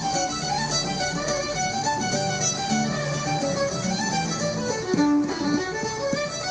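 Fiddle and guitar music, a lively tune in a string of quick notes.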